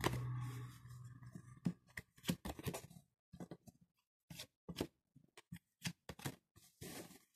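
Le Manuscrit oracle cards being drawn from a spread deck and laid down one by one on a cloth: a string of short card clicks, snaps and rustles at an uneven pace. A low hum sounds in the first second and a half.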